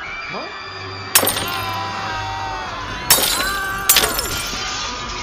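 Three sharp crashes like glass breaking, about a second in, at about three seconds and just before four seconds. Between them are held, wailing cries that fall in pitch as each one ends.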